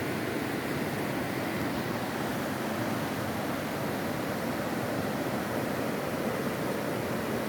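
Steady rushing of a waterfall's falling water, an even, unbroken noise.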